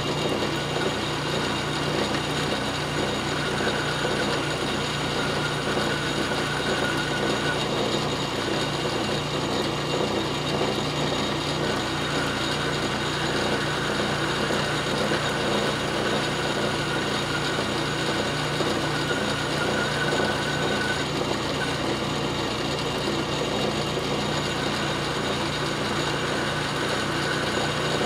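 South Bend Model A metal lathe running steadily, its gear and belt drive giving a constant mechanical clatter, while the tool takes a light cut turning a 60-degree point on a spinning steel drill rod.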